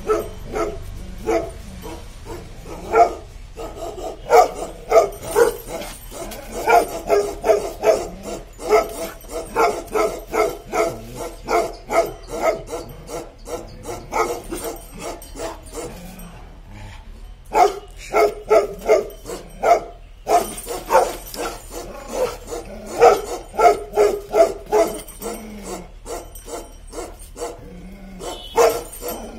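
Bakarwal dog barking in quick repeated volleys, a few barks a second, with a short break a little past halfway.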